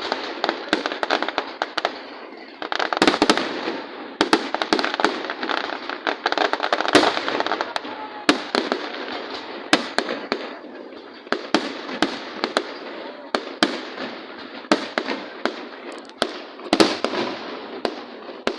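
Fireworks display: an irregular string of sharp bangs, several a second, over a continuous crackle, growing denser about a sixth of the way in and again near the end.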